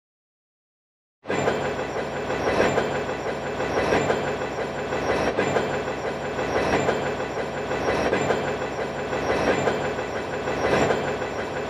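Train running along the track, starting about a second in: a steady, dense running sound with a regular beat roughly every second and a half.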